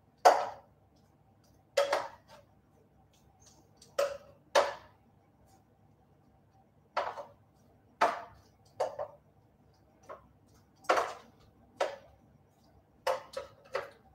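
Kitchen tongs clinking and scraping against a metal roasting tray as roast vegetables are lifted out: about a dozen short, sharp clacks at irregular intervals, some in quick pairs or threes.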